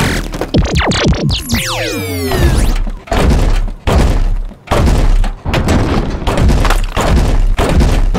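Designed sci-fi robot transformation sound effect: a cluster of fast rising and falling mechanical whines in the first couple of seconds, then a run of heavy metallic clanks and thunks with a deep low end, several coming less than a second apart.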